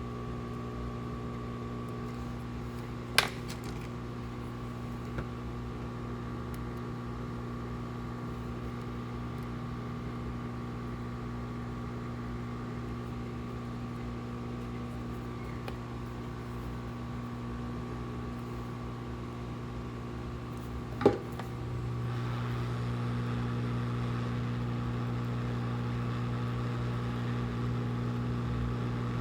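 A steady electrical hum from bench equipment, such as a fan or motor, with two sharp clicks about 3 and 21 seconds in. The hum gets louder about 22 seconds in.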